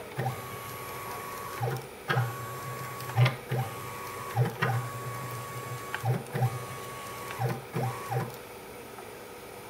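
Stepper motor jogging the Z axis of a home-built aluminium CNC router, driving the ball-screw carriage up and down. Each move is a steady whine lasting about a second, sweeping in pitch as it speeds up and slows down, with a click as it starts and stops. It repeats about seven times, then goes still shortly before the end.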